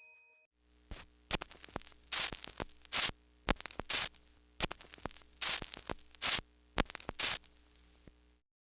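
Irregular crackling bursts of static-like noise over a faint steady hum, cutting off suddenly near the end.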